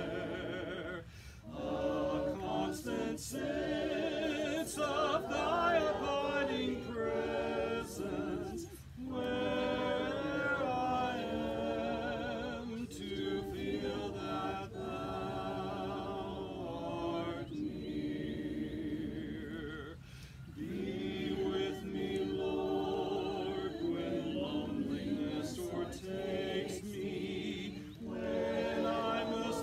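Congregation singing a hymn a cappella, many voices together in long phrases with short breaks between them.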